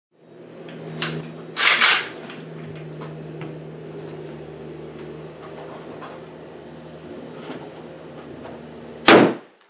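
Gunshots over a steady low hum: a sharp double bang about two seconds in, and a single loud shot near the end, the loudest sound.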